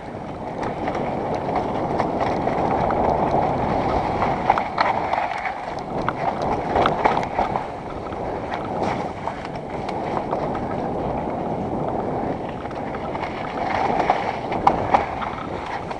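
Wind rushing over a helmet camera's microphone and mountain-bike tyres rolling fast over a dirt trail, steady throughout, with scattered sharp knocks and rattles from the bike hitting bumps.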